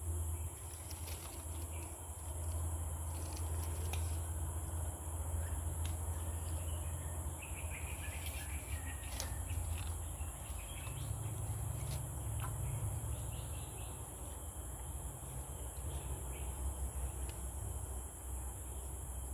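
Insects buzzing steadily at a high pitch in the riverside undergrowth over a constant low rumble, with a few brief chirps about eight seconds in.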